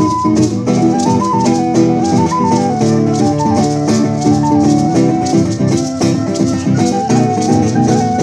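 Live acoustic band music: a recorder plays a stepwise, lilting melody over strummed acoustic guitar, with a maraca shaking a steady beat.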